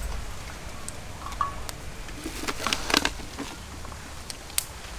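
Dry twigs and bricks being handled at a small kindling fire: scattered light clicks and snaps, busiest about two and a half to three seconds in.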